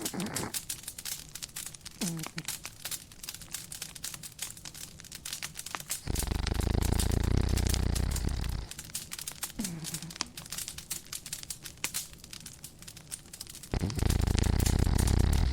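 Wood fire crackling with a constant run of small pops, and a dog snoring: one long, low snore about six seconds in lasting over two seconds, and another starting near the end.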